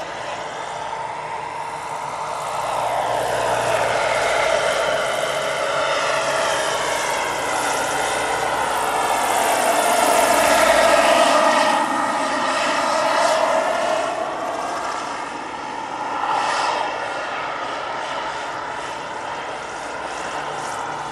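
Turbine engine and rotors of a giant-scale model AH-64 Apache helicopter in flight. The sound swells to its loudest about halfway through as the helicopter passes close, with its pitch sweeping, then eases off as it flies away.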